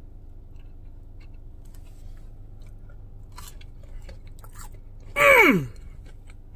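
A person chewing a breaded chicken nugget dipped in barbecue sauce, with faint soft crunches and mouth sounds over a low steady hum. About five seconds in comes a short, loud vocal exclamation of enjoyment that falls steeply in pitch.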